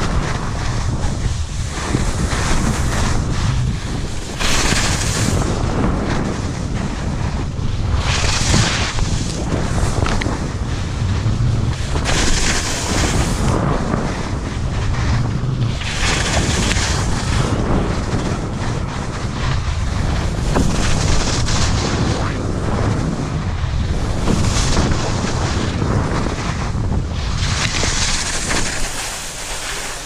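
Skiing downhill: wind buffets the microphone in a constant low rumble, and the ski edges scrape the snow with a rising hiss on each turn, about every four seconds.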